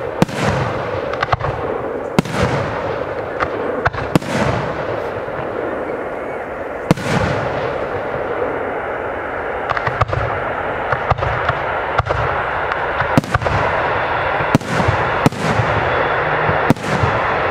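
Aerial fireworks bursting overhead: sharp bangs at irregular intervals, roughly one every second or so, each trailing off in a fading echo, over a steady hiss.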